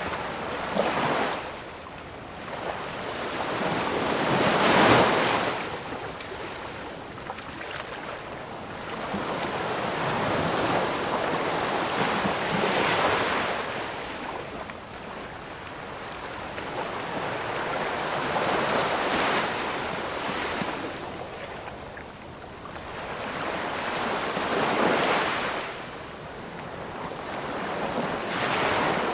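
Ocean surf: waves washing in and drawing back in slow swells, one about every six seconds, the loudest about five seconds in.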